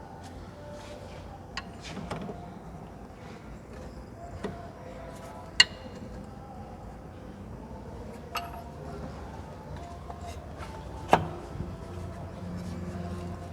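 Scattered sharp metallic clicks and knocks of tools and bolts being handled while a bolt is refitted in a car's front suspension, the loudest about five and a half seconds in and another about eleven seconds in, over a low steady workshop hum.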